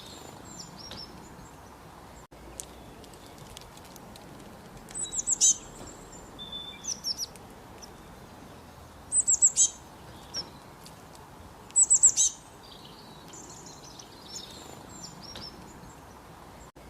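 Birds singing: three loud phrases of rapid, sharp, high-pitched notes, about four seconds apart, over softer scattered chirping and a steady background hiss.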